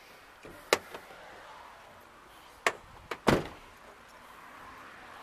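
Vehicle door latch and door: a sharp click a little under a second in, then two more clicks and a heavier thud of the door shutting a little past three seconds.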